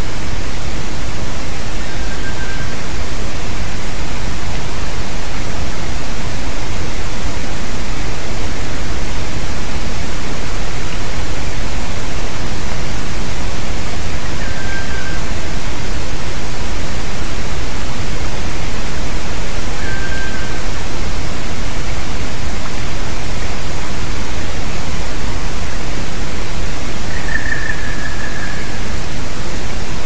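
Black woodpecker calling: a few short, high single notes spaced far apart, the last one near the end louder and longer, over a loud steady hiss.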